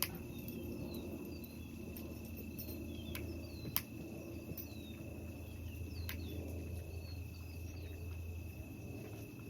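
A steady high-pitched insect drone, with faint short bird chirps above it and a few sharp clicks, the loudest nearly four seconds in.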